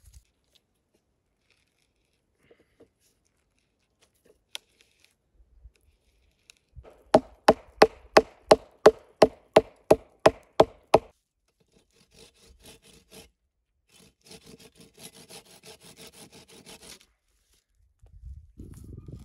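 About a dozen sharp, evenly spaced blows of a hatchet on the crossed tops of two logs, about three a second, with a short ring after each. Then a few seconds of quieter, rhythmic scraping on the wood.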